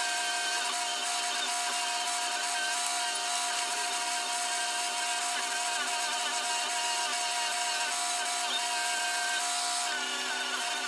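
Electric power tool running continuously with a steady motor whine whose pitch wavers slightly.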